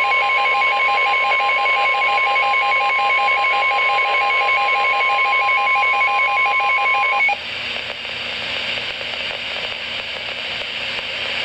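NOAA Weather Radio's steady warning alarm tone, with a rapidly pulsing two-pitch beep over it. Both cut off together about seven seconds in, leaving the hiss of the radio channel. The tone is the alert that comes before a spoken severe thunderstorm warning.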